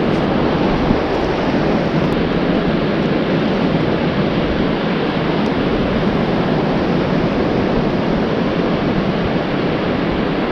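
Surf washing onto the beach, a steady rush of noise, with wind buffeting the microphone.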